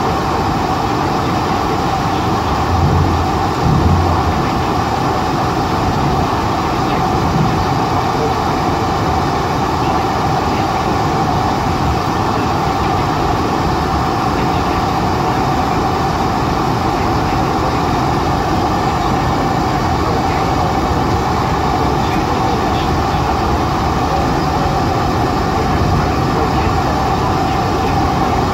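Steady cabin noise inside a Boeing 747-400 rolling along the runway after touchdown: a loud, even rush of engines and airflow with a steady hum, and a couple of low bumps about three to four seconds in.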